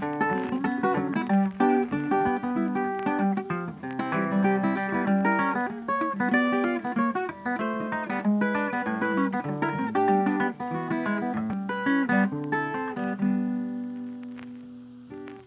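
Background music: an upbeat plucked and strummed guitar tune, fading out over the last few seconds.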